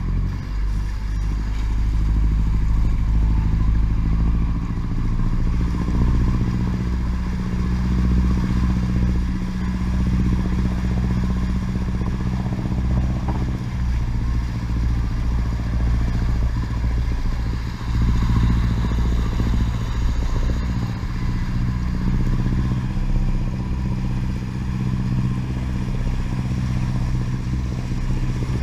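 Fishing boat's engine running steadily under way, with the wash of its wake.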